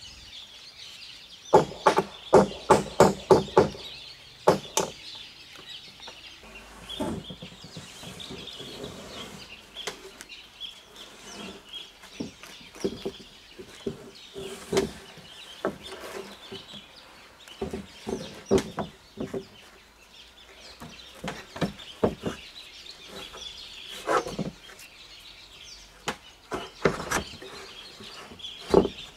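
Hammer blows fixing corrugated roofing sheets onto a coop roof: a quick run of about six sharp knocks about two seconds in, then scattered single strikes. Chickens cluck through it over a steady high hiss.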